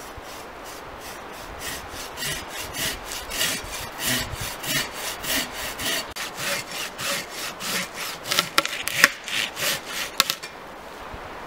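Long-bladed Silky hand saw cutting through a log with regular strokes, about two a second, with a few sharper cracks near the end as the cut goes through.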